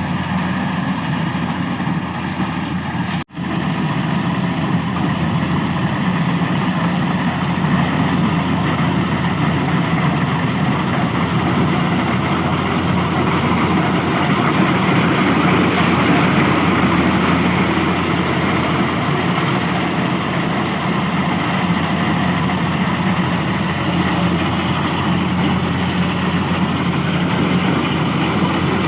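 Kubota DC70 combine harvester's diesel engine and machinery running steadily, with a brief dropout about three seconds in.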